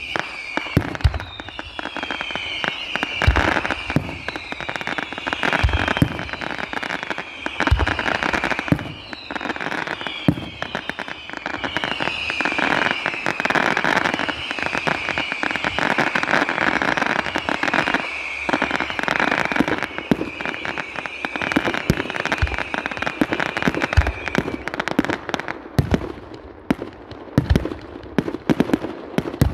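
Fireworks display: deep launch thumps every second or two, dense crackling, and whistles that fall in pitch. The whistling stops near the end, leaving sharper pops and crackle from bursts overhead.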